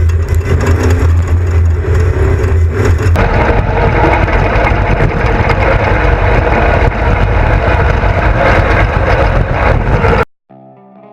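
Off-road race vehicle's engine running hard at speed, loud and rough. It cuts off suddenly near the end, and quiet electric-guitar music starts.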